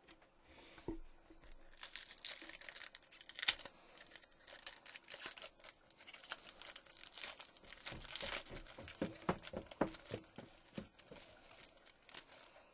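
Foil wrapper of a Topps Chrome football card pack being torn open and crinkled in the hands: a dense, irregular crackle with sharp ticks that starts about two seconds in and stops near the end.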